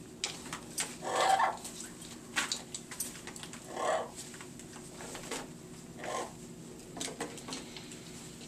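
Green-winged macaw making short, scattered calls, a handful spread a second or two apart, with the loudest about a second in and about four seconds in.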